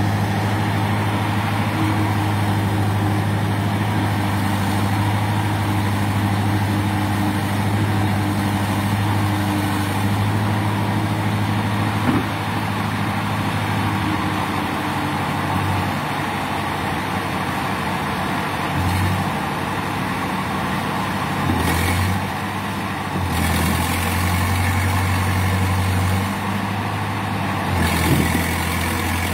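Diesel engine of an old crawler bulldozer running steadily as it pushes and levels soil. Its note shifts several times in the second half, with short louder stretches as the load changes.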